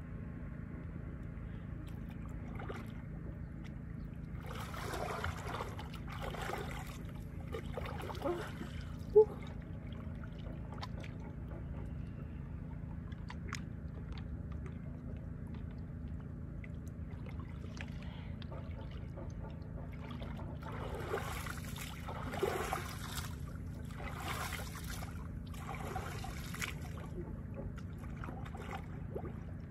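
Sea water splashing and sloshing in bursts, about four seconds in and again from about twenty to twenty-seven seconds, over a steady low rumble. A single sharp knock about nine seconds in is the loudest sound.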